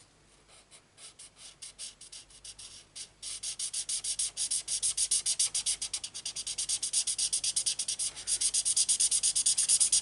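Marker nib rubbing on cardstock in quick back-and-forth colouring strokes, several a second. Faint and scattered at first, louder and steady from about three seconds in.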